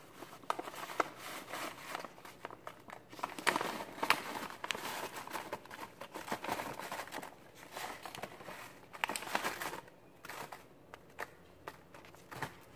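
A bag of chocolate cake mix crinkling and rustling as the powder is shaken out of it into a mesh sieve, with irregular small clicks and crackles. It dies down near the end.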